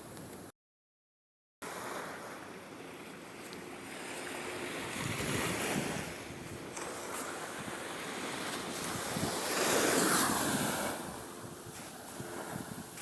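Ocean surf washing up on the shore, swelling twice and loudest about ten seconds in, with wind on the microphone. The sound cuts out completely for about a second near the start.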